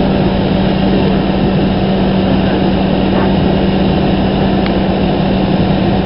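Fire apparatus engine running steadily at the scene, a constant low hum over an even wash of engine noise.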